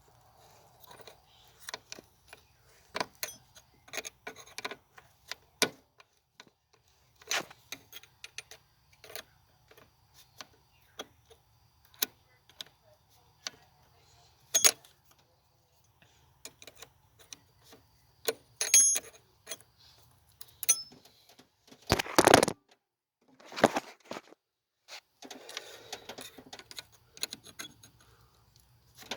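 Irregular clicks and metallic clinks of hand tools and parts being handled while the air intake is refitted on an engine, with a louder clatter about three-quarters of the way through.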